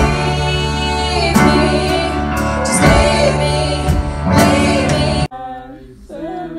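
Live band playing, with several women singing together over drums and a pitched band accompaniment, with regular drum hits. About five seconds in the music cuts off suddenly, and a single voice sings much more quietly.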